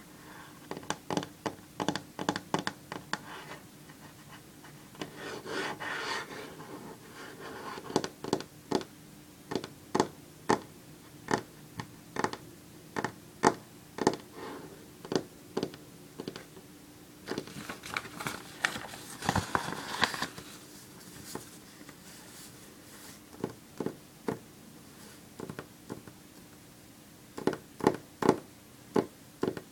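Long fingernails tapping and clicking on a wooden tabletop in quick runs of sharp taps, with stretches of nails scratching in between. Near the end the nails tap on sheets of paper lying on the table.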